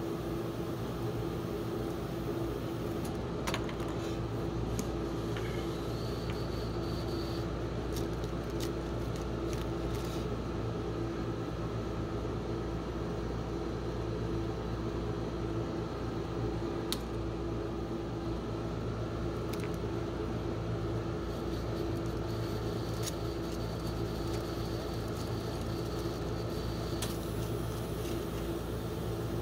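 Steady hum of a rolled-ice-cream cold plate's refrigeration unit running. A few sharp clicks and crackles come over it as gloved hands handle chocolate shells and foil wrappers.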